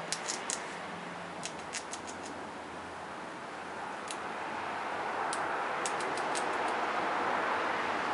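Grey squirrel chewing fruit, giving a dozen or so sharp, irregular clicks, clustered near the start and again past the middle, over a steady hiss of background noise that swells in the second half.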